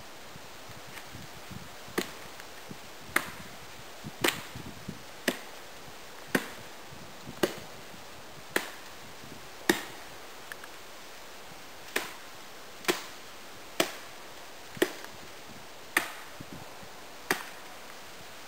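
A series of sharp, wooden-sounding knocks, about one a second, with a short pause midway.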